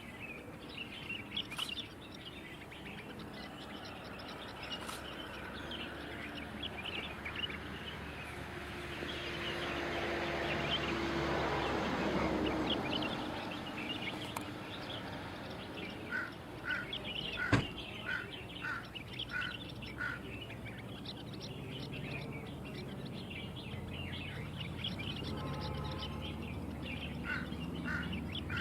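Many small birds chirping, with one bird repeating a short call about twice a second in the second half. A steady rushing noise swells and fades near the middle, and there is a single sharp click.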